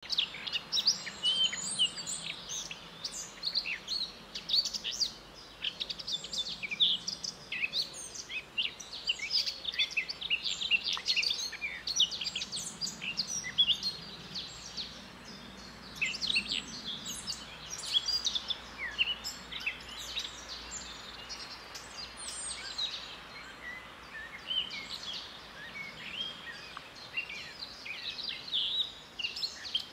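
Dawn-chorus-like mix of many songbirds singing at once, with overlapping quick chirps, trills and whistles all through, over a faint low background hum.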